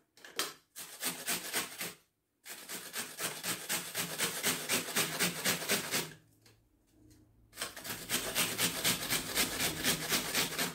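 Onion being grated on a stainless steel box grater: quick, even rasping strokes, several a second, pausing briefly about two seconds in and again for about a second and a half past the middle.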